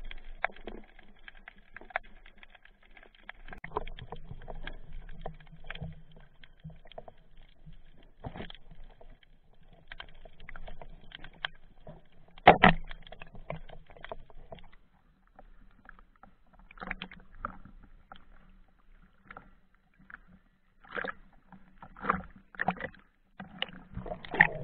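Muffled underwater sound of water moving against an action-camera housing, with scattered knocks and clicks. One sharp, loud knock comes about halfway through, and louder knocks come near the end.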